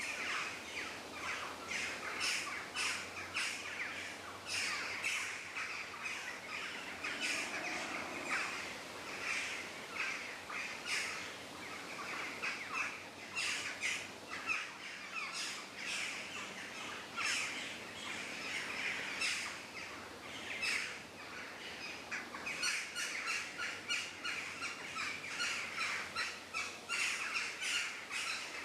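Forest ambience full of birdsong: many overlapping chirps and short calls from several birds, with occasional crow-like caws, over a light hiss.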